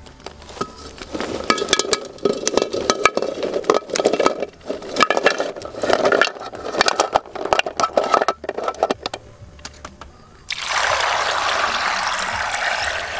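Irregular clinks, knocks and splashing of things handled in water for several seconds, then a steady pour of water starting about ten and a half seconds in.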